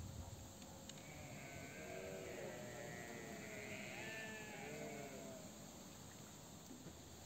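Several faint animal calls overlapping, a cluster of short rising-and-falling calls from about a second in until about five seconds in.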